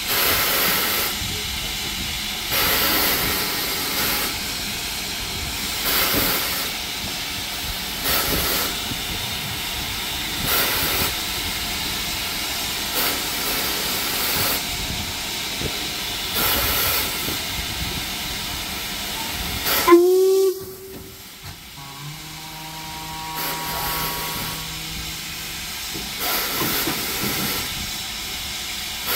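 LMS Black Five steam locomotive standing at the platform, letting off steam in a steady hiss that surges every second or two. About two-thirds through, a sudden loud burst is followed by the hiss cutting off and a quieter held tone for a few seconds before the hiss returns.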